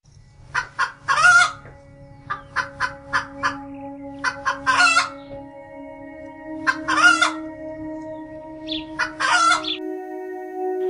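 Chicken cackling: a few short clucks, then a louder drawn-out squawk, four times over.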